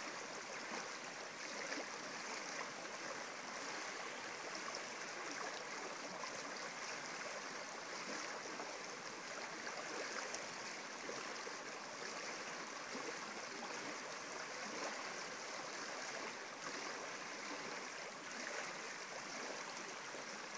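Shallow stream running and rippling over a bed of pebbles and stones: a steady, even rush of water.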